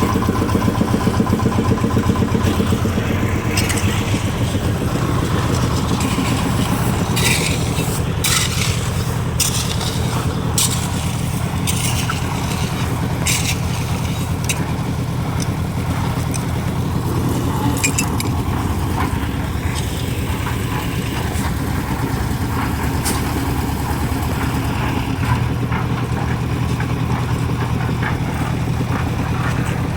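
Engine running steadily at constant speed, with scattered sharp clanks and knocks over it.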